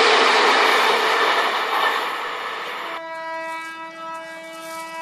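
A train running past, its rushing noise fading over the first three seconds. It is then cut off abruptly by one long, steady horn note, a train horn.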